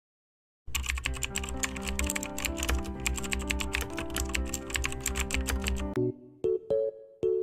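Fast, continuous computer-keyboard typing over music with steady held notes and a bass line, starting about a second in and cutting off suddenly near the end. After it, a few separate keyboard notes play one by one.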